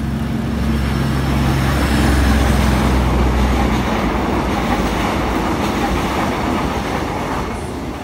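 Multi-car passenger train passing close by. A steady low engine hum runs for the first few seconds over the rumble of its wheels on the rails; the sound is loudest about two seconds in and eases off near the end as the last cars go by.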